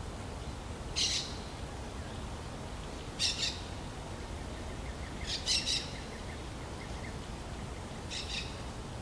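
A small bird chirping: four short calls, each a quick cluster of high chirps, spaced about two to three seconds apart, over steady background noise.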